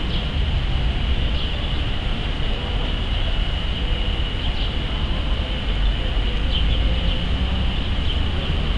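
Outdoor crowd ambience: a steady low rumble under a general hubbub, with a few short high chirps now and then.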